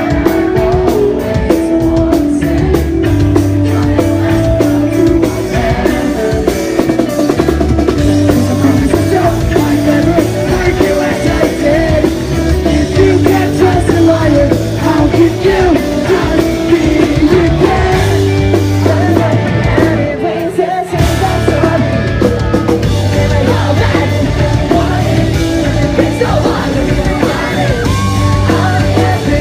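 Pop-punk band playing live, with singing over drum kit and loud amplified rock instruments. The bass and drums drop out briefly about two-thirds of the way through, then come back in.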